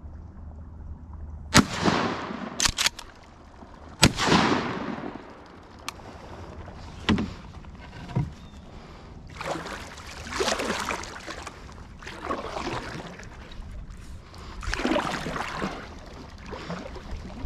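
Two shotgun shots about two and a half seconds apart, each echoing across the water, with a couple of sharp clicks between them. Later come three longer swishes of water as the canoe is paddled.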